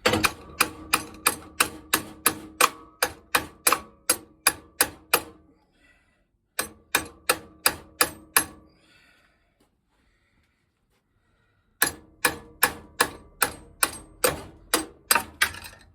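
Hammer tapping on a metal rod used as a ram, about four sharp ringing blows a second, in three runs with short pauses between: driving a wood lathe's spindle out of its stuck bearing.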